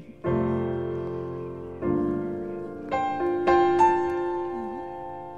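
Slow solo piano music: about five chords and notes, each struck and left to ring and fade.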